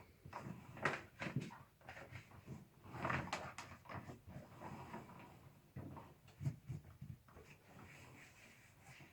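Faint, irregular knocks, taps and rustling from vacuum-cleaner parts being handled and wiped; the vacuum motor is not running.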